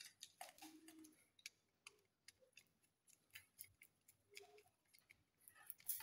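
Faint, irregular small clicks and ticks of a screwdriver and wire working a terminal on a plastic two-gang light switch.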